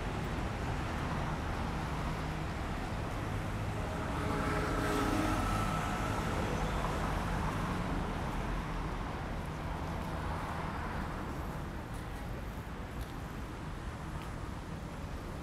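City street traffic: a steady hum of cars passing. About five seconds in, a louder vehicle goes by with a whine.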